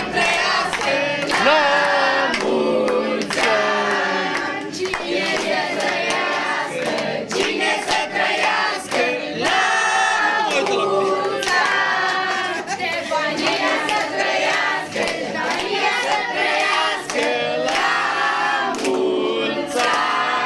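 A group of family members singing a birthday song together, several voices at once, with hands clapping along.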